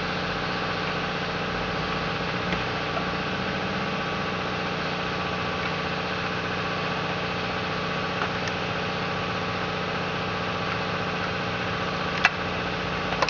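Steady mechanical hum of a running machine, with a few faint ticks and one sharper click near the end as the screws of a chainsaw's hood are undone.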